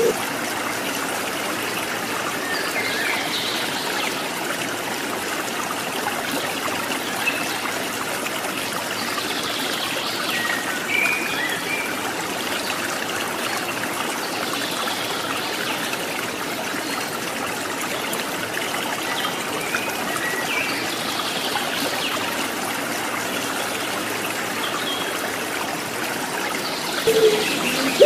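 Water trickling steadily like a small stream, with faint, high chirps of small birds every several seconds.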